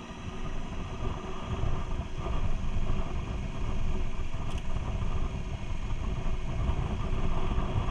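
Motorcycle riding at a steady pace on a rough gravel road, engine running under a heavy irregular low rumble of wind and road noise on the helmet-mounted microphone, getting louder about a second in.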